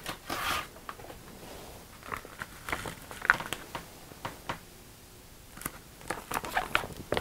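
Plastic food packaging crinkling and rustling as it is handled, in scattered short crackles.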